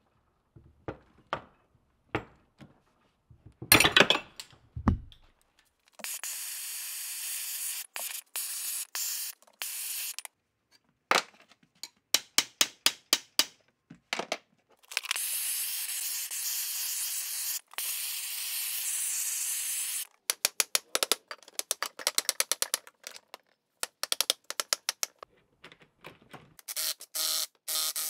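Aerosol spray can hissing in three long bursts of about four to five seconds each onto the rusted, seized parts of an old screw hoist. Between the bursts come runs of sharp, rapid clicks, the loudest a few seconds in.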